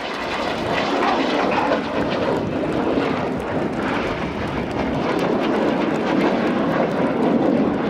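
Red Arrows BAE Hawk T1 jets flying past, their jet engine noise a loud, steady rushing sound.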